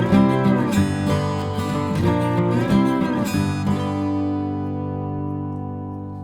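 Background music: acoustic guitar strumming chords, then a final chord held about four seconds in that rings out and slowly fades.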